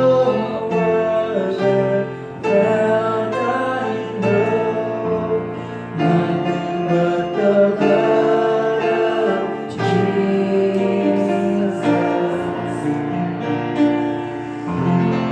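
A slow song: piano accompaniment under a singer's voice, holding long notes that change every second or two.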